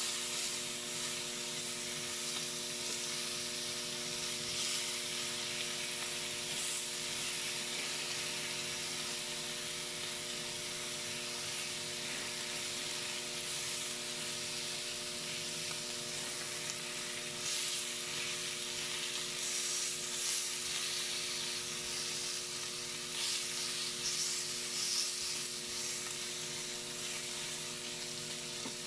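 Thin slices of meat sizzling on a ridged electric grill plate: a steady hiss that flares up in short spells as a fork turns and presses the slices, over a faint steady hum.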